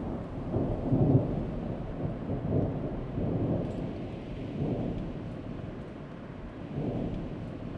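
Thunderstorm sound effect: deep rolling thunder rumbles over a steady hiss of rain, swelling several times, loudest about a second in.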